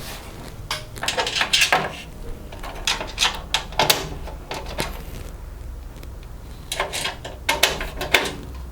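Screwdriver driving small screws through a motherboard into the case's standoffs: bunches of quick small metallic clicks and knocks, with short pauses between screws.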